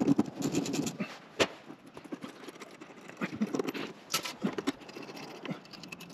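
Irregular clicks and knocks of hands working at a fuse holder on the battery cables, pulling a fuse to disconnect one of the inverters.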